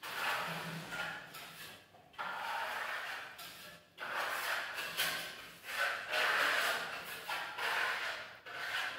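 A hand trowel scraping a burnt-cement finish coat across a plastered wall in a series of long strokes, each lasting a second or two with brief pauses between them.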